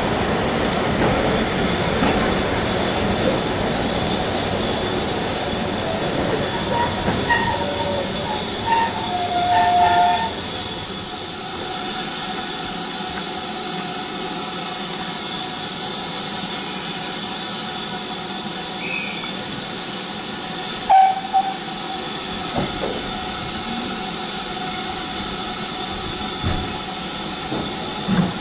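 Running noise of a steam-hauled train's coach, heard from an open window, dying away about ten seconds in as the train slows to a stand, with a few brief squeals as it slows. Then a steady steam hiss from the locomotive, BR Standard class 4 tank 80002, as it stands, with a couple of sharp knocks.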